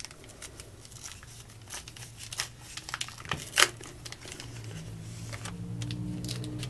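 Trading card pack wrappers being torn open and crinkled as baseball card packs are opened, with irregular crackles and one sharper snap about halfway through.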